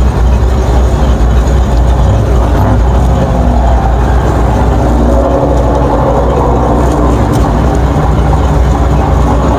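1950 Ford F1 pickup's 8BA flathead V8 running steadily at low speed, a deep continuous rumble.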